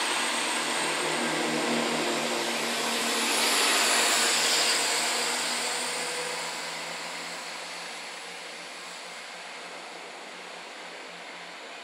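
Class 170 Turbostar diesel multiple unit (two units coupled) pulling out of the station past the listener. Its diesel engines give a pulsing note under the wheel and rail noise. The sound is loudest about four seconds in, then fades as the train draws away.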